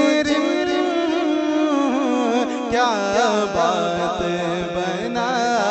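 A man's voice singing a long wordless, wavering melismatic phrase of a naat, over a steady low drone that steps down in pitch about halfway through.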